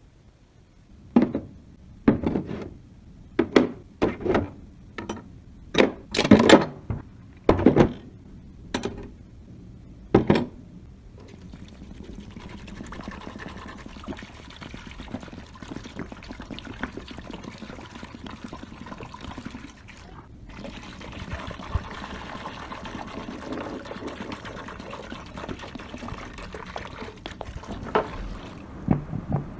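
About a dozen sharp knocks and clatters, then a steady run of pouring or running liquid that stops briefly about twenty seconds in and starts again.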